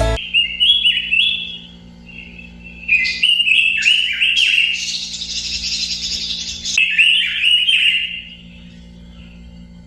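Pekin robin (red-billed leiothrix) singing: a short warbled phrase, then from about three seconds in a longer run of rapid fluting notes with a scratchy stretch in the middle, stopping about eight seconds in. A steady low hum lies underneath.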